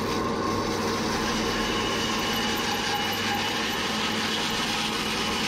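Large stationary band saw running and cutting through a thick block of timber: a steady machine hum, with a higher whine from the blade in the wood joining about a second in.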